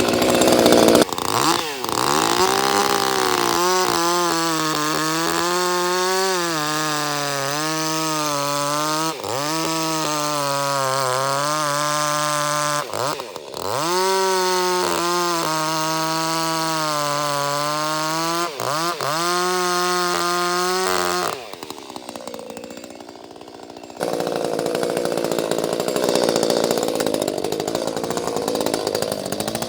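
Ported Echo CS-310 two-stroke chainsaw running at high revs while bucking a log. Its engine note sags and picks back up several times as it works through the wood. The high-pitched running stops about 21 seconds in, and a rougher, noisier sound takes over for the last few seconds.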